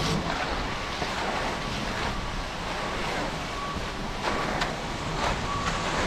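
Steady rushing noise of wind on the microphone, with a few faint ticks in the second half.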